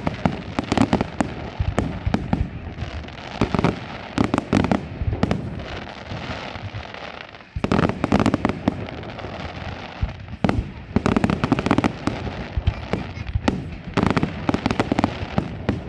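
Aerial fireworks display: volleys of sharp bangs and crackling shells come in clusters about every three seconds, with a brief lull about six to seven and a half seconds in.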